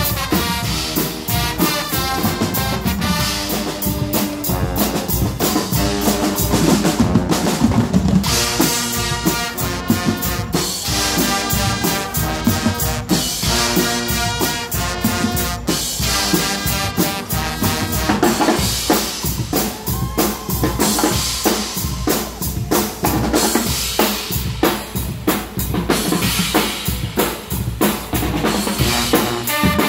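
Guggenmusik band playing a loud, driving tune: a section of trumpets, trombones and sousaphones over a drum kit keeping a steady, busy beat.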